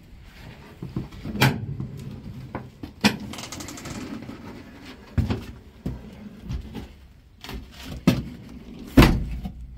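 A series of irregular knocks and clunks, about half a dozen, over a faint low rumble. The one near the end is the loudest.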